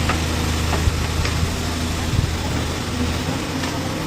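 Backhoe loader's diesel engine running steadily, with a few faint light knocks.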